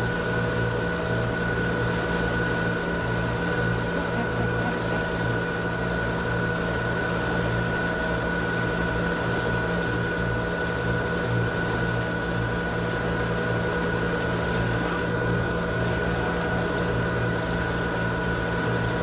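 Motor catamaran's engines running steadily under way: an even hum with a higher whine over the rush of the boat's wake water.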